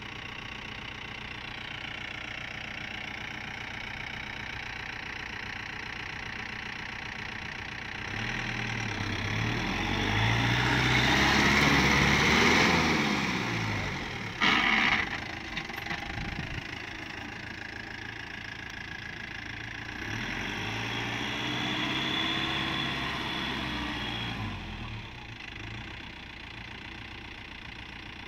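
Jeep CJ3B's engine running steadily, then revving up and falling back twice under load as it climbs in loose sand. There is a short loud burst of noise about halfway through.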